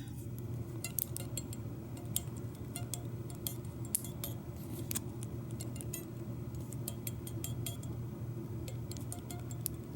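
Small scattered metallic clicks and scrapes from a key blank being worked out of a Schlage deadbolt cylinder while a shim is pushed between the driver and key pins to shim the lock open.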